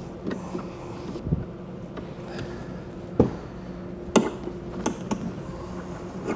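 Machine screws being driven in by hand to fasten a latch strike inside a hard plastic saddlebag, with several sharp clicks and knocks of the tool and parts, the loudest about three and four seconds in, over a steady low hum.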